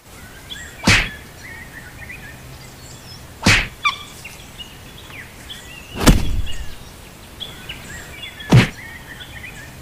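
Four sudden thunks, evenly spaced about two and a half seconds apart, over a quiet background of birds chirping.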